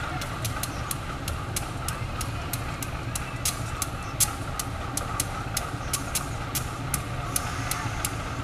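CC 201 diesel-electric locomotive (GE U18C type) with its engine running at idle, a steady low rumble, with many short sharp clicks scattered through it, several a second.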